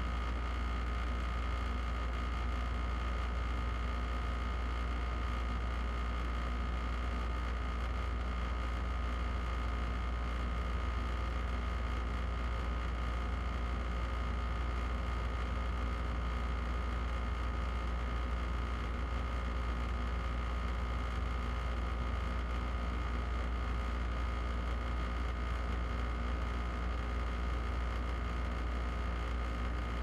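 Air conditioner running at level three: a steady deep hum with a faint steady whine above it.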